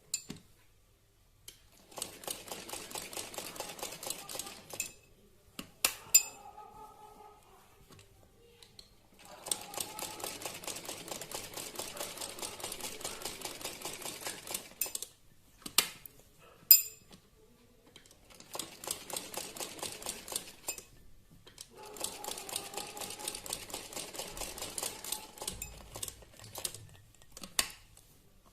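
Sewing machine stitching in four runs of a few seconds each, with short pauses and single clicks between them, as the cloth is turned by hand to fill in a free-motion embroidery design.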